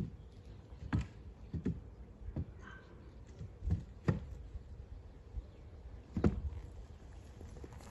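A horse's hooves stepping on and off a low wooden platform box, giving scattered, irregular thumps. The loudest come about a second in, about four seconds in and just past six seconds.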